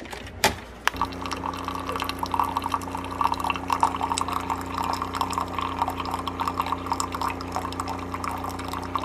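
Keurig single-serve coffee maker brewing: a couple of sharp clicks in the first half second, then from about a second in a steady machine hum with coffee streaming and splashing into a ceramic mug.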